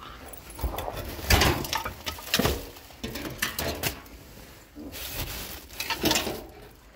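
Cardboard boxes and plastic bags rustling, crinkling and knocking about as rubbish in a large bin is rummaged through by hand, with a few louder knocks near the start.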